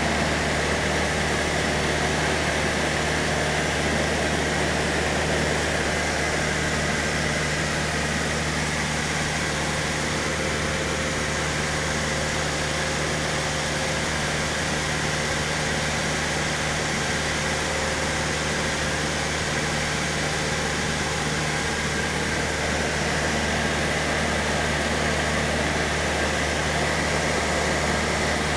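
Cessna 152's four-cylinder piston engine and propeller droning steadily in flight, heard inside the cabin with a constant rush of airflow noise.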